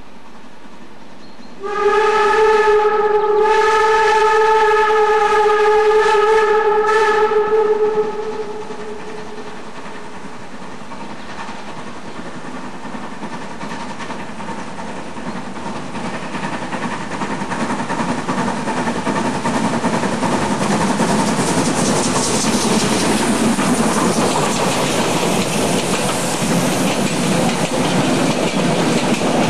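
A Harz narrow-gauge 2-10-2 steam tank locomotive sounds a long blast on its steam whistle, about six seconds, starting about two seconds in. Then the noise of the engine and its train running past builds steadily louder as it comes up to and passes the trackside.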